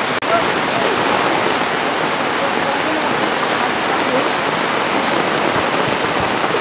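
Steady rush of floodwater flowing down a street, mixed with heavy storm rain, with faint voices underneath.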